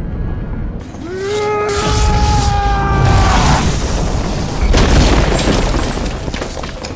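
Dramatic film sound effects: a held pitched tone that rises at its start about a second in, over a building rush of noise, then a heavy boom about five seconds in.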